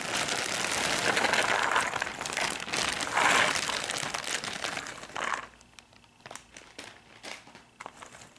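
Plastic bag crinkling as a 2000-piece cardboard jigsaw puzzle is poured out of it into the box, a dense rustling rattle of pieces sliding and falling. About five seconds in this stops, giving way to scattered light clicks of loose pieces being stirred by hand.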